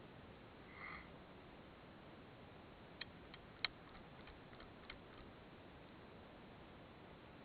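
Near silence with a faint steady hiss, a brief high chirp about a second in, and a few sharp small clicks around the middle, the third the loudest.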